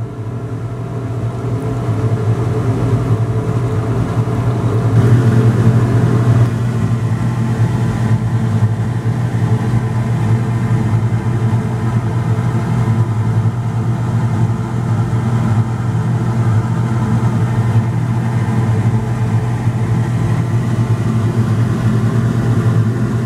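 Steady, loud hum of an electric motor running in a chemistry lab. It grows louder over the first few seconds, then holds level.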